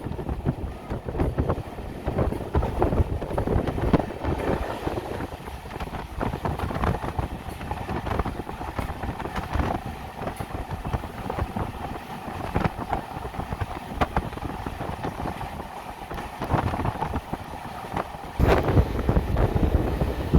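Express passenger train running at speed, a steady rumble of wheels on the rails with frequent short clicks. About two seconds before the end, wind buffeting the microphone makes the sound suddenly louder and deeper.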